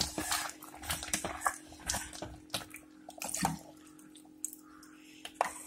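Coconut milk poured from a jug into a thick jaggery, rice and cowpea mixture in an aluminium pressure cooker pot, with a metal ladle knocking and scraping against the pot as it is stirred. A steady low hum sits underneath.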